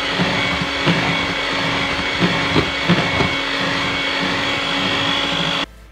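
Electric hand mixer running steadily, its beaters whipping eggs and sugar in a glass bowl; it switches off suddenly just before the end.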